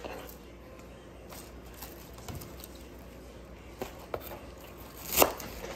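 Kitchen handling of cut green onions: scattered light rustles and small knocks, with one sharp knock about five seconds in.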